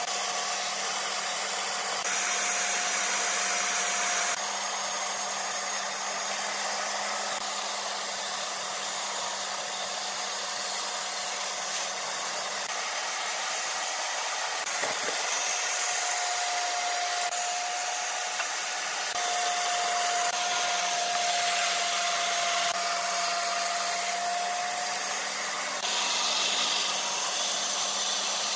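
Bandsaw running steadily while its blade cuts curved shapes from a wooden board, with a steady hum and a faint whine that comes and goes.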